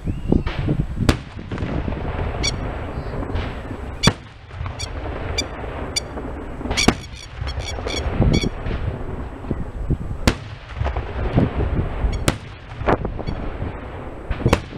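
Aerial fireworks shells bursting, with a sharp bang about every two to three seconds, six in all, over a continuous low rumble and short high crackles between the bangs.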